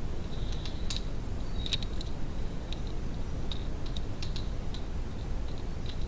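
A European robin pecking at seed and dried mealworms in a plastic feeding dish: irregular sharp clicks and taps, some with short high chirps, over a steady low rumble.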